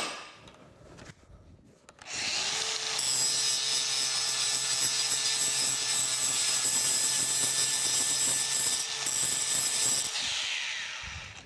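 Cordless angle grinder with a grinding wheel starting up about two seconds in and running steadily as it grinds the gate off a metal casting, then released near the end and spinning down with a falling whine.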